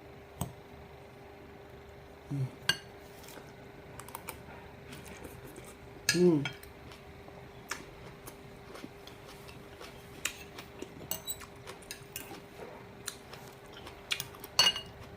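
Fork or spoon clicking and scraping against a plate of salad during eating, in scattered sharp clinks. A short hummed vocal sound comes about two seconds in and again, louder, about six seconds in, over a faint steady hum.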